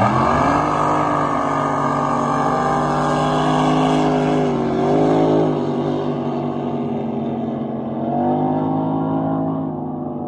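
A racing drag boat's engine launching off the line at full throttle and running down the course. The engine note jumps up sharply at the start, holds high and steady with two short dips in pitch, and fades slightly near the end as the boat pulls away.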